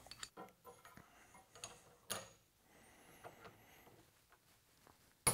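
Faint ticking and clicking of a torque wrench as it is set and worked on a rifle's barrel nut to torque it to 70 foot-pounds, with one sharper click about two seconds in. A louder knock comes right at the end.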